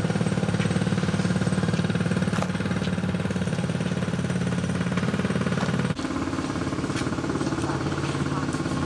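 A motor engine running steadily with a low, fast-pulsing hum. About six seconds in it cuts abruptly to a similar steady hum at a slightly different pitch.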